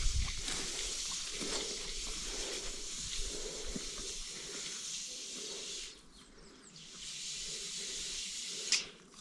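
A steady hiss with a few faint soft knocks; it drops out for about a second near the middle, then returns.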